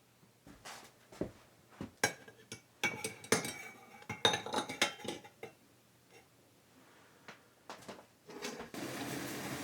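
Dishes and metal cutlery clinking and knocking against each other in a run of sharp, irregular clinks, then a few more. A steady noise starts near the end.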